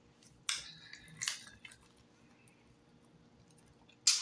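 Eating sounds of deep-fried turtle: a few short, sharp crackles as pieces are pulled apart by hand and chewed, the loudest one near the end.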